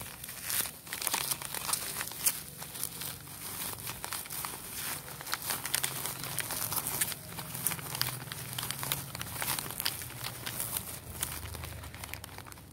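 Plastic bubble wrap being handled and unwrapped by hand: a continuous run of irregular crinkles and crackles.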